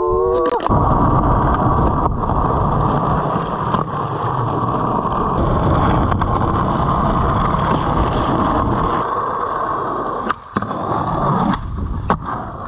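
Skateboard wheels rolling on rough asphalt, a steady rolling noise, with a few sharp clacks of the board.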